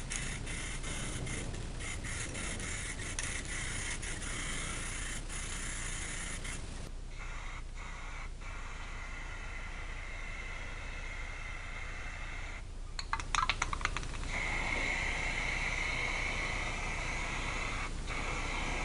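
Rust-Oleum aerosol spray can, fired through a clip-on trigger handle, hissing steadily as it sprays paint, with a brief clattering rattle about two-thirds of the way through.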